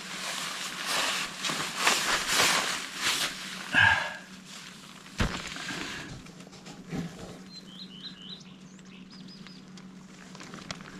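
Rustling and scraping of tent fabric being handled for the first few seconds, with a sharp knock about five seconds in. Later a small bird chirps a quick run of short falling notes.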